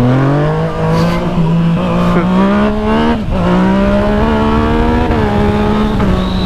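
Yamaha MT-09's three-cylinder engine accelerating hard. Its pitch climbs steeply at the start, then drops at an upshift about three seconds in and again about five seconds in, over wind rushing past the helmet-camera microphone.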